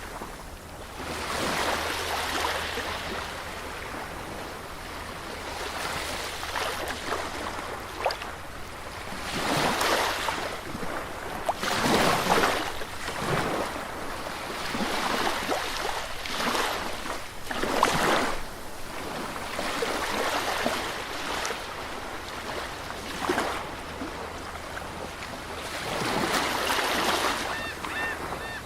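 Sea surf washing onto a beach, swelling and falling away as waves break every few seconds.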